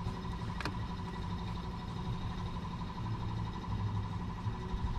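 Steady mechanical hum with a faint high tone, and a single sharp click about half a second in.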